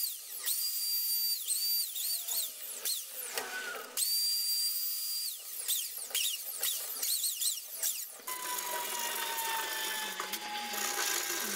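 Electric plunge router running at high speed, its whine dipping in pitch again and again as the bit bites into the wooden board while a channel is routed freehand. After about eight seconds the whine gives way to a lower hum with one tone falling slowly.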